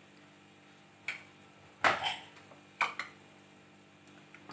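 Three short knocks of kitchenware on aluminium, about a second apart, as the open pressure cooker and its utensils are handled.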